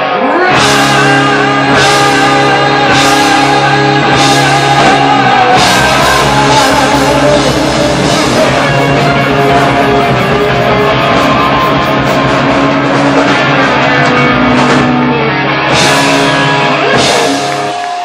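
Live hard-rock band playing loud: distorted electric guitars over bass and drums, with cymbal crashes about once a second and a singing voice.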